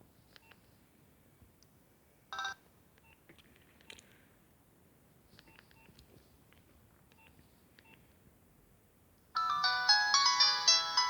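Nokia 6070 mobile phone starting to play a polyphonic ringtone about nine seconds in, several electronic notes at once in a quick melody. Before that come only faint scattered clicks and one short beep about two and a half seconds in.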